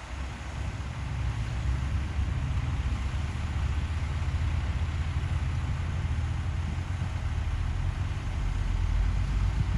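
Heavy diesel engine of earthmoving machinery running steadily with a low rumble, growing a little louder near the end.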